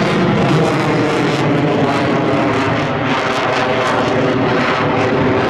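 Boeing F/A-18 Super Hornet's twin General Electric F414 turbofans passing overhead in a display manoeuvre: loud, steady jet noise with a crackling edge.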